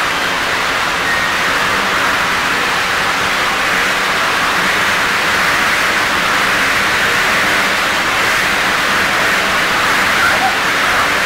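Five motorcycles running together as they circle inside a steel mesh globe of death, their engines merging into one loud, steady, unbroken din.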